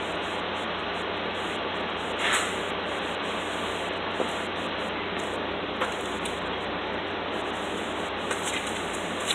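Steady rushing background noise with a low hum under it, and a few faint light clicks, about two to six seconds in.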